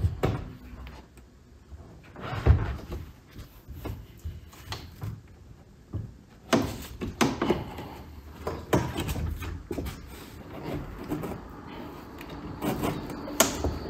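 Irregular knocks, clunks and scraping as the rear parcel shelf and its plastic trim in a Mercedes E-Class W211 are tugged and worked loose, with a few sharper knocks scattered through.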